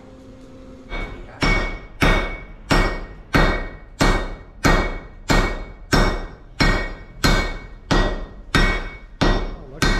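A smith's hammer striking metal on an anvil in a steady forging rhythm, about a stroke and a half per second, each blow landing with a heavy thud and a metallic ring. It starts about a second in and keeps an even pace.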